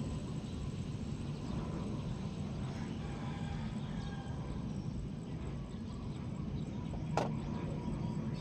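Diesel engine of a Doosan 190 wheel-type excavator running steadily with a low rumble, with a single sharp knock about seven seconds in.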